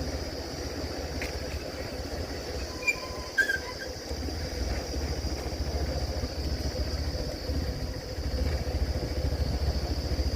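Safari vehicle's engine running with a low pulsing rumble that dips briefly and then grows louder near the end, under a steady high buzz, with a few brief high chirps about three seconds in.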